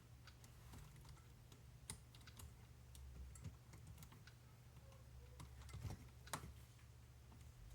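Faint, scattered small clicks and ticks of tiny RC car parts and tools being handled while a front wheel bearing is fitted, over a low steady hum.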